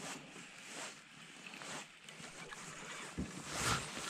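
A bass being fought and reeled in on a rod and reel: faint reel and water noise, with a louder swirl about three and a half seconds in as the fish nears the surface.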